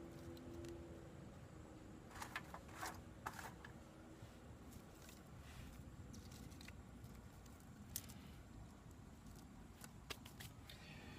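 Faint, short scrapes of a striker on the ferrocerium rod of a Vargo Ultimate Fire Starter, a handful of strokes spread unevenly, with the sparks not lighting the tinder.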